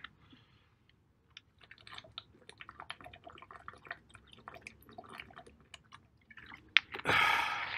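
A person drinking water after a workout: a run of small irregular gulping and swallowing clicks, ending in a short loud rush of noise.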